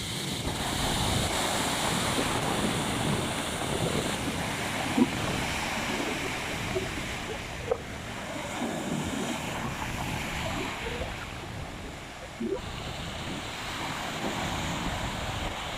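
Sea waves breaking and washing on the shore, with strong wind blowing across the microphone. There are three brief knocks in the noise, about five, eight and twelve seconds in.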